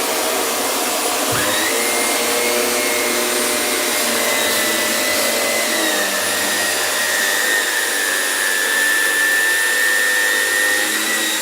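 Shark Navigator Lift-Away upright vacuum running steadily over carpet, sucking up spilled flour. A high whine comes in about a second and a half in and holds steady over the motor's even noise.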